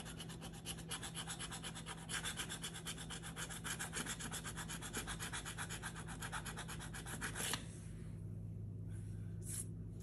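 A coin scratching the coating off a paper scratch-off lottery ticket in rapid back-and-forth strokes, several a second, which stop about three-quarters of the way through.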